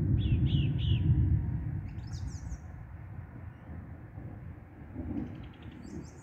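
Birds calling: three short falling notes in the first second, higher chirps about two seconds in and again near the end, and a quick run of ticks around five seconds in. Under them a low rumble is loudest in the first second or so, then fades.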